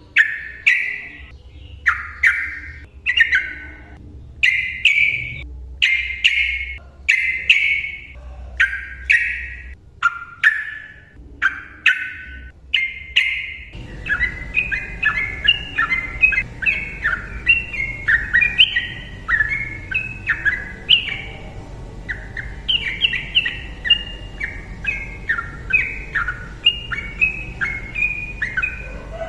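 Sooty-headed bulbul (trucukan) singing. For the first half it gives loud, separate notes a little over one a second, each sliding in pitch. About halfway the song changes to a fast, unbroken run of short chattering notes over a louder low hiss.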